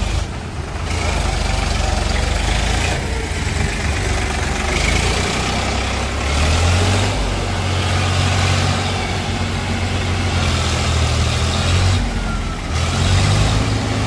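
Eicher 551 tractor's diesel engine running as the tractor moves off, its note stepping up and down with the throttle several times.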